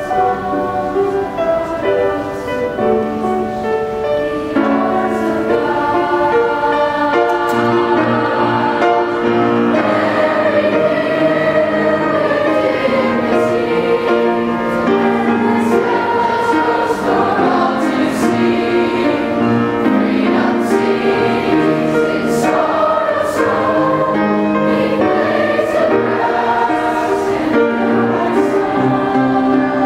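Middle school choir singing in several parts with long held notes, growing a little louder about five seconds in.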